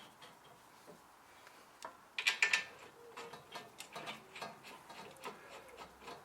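Metal brake parts being handled while a disc goes onto the hub: a sharp clatter of metal clicks about two seconds in, then a run of light ticks, roughly three a second.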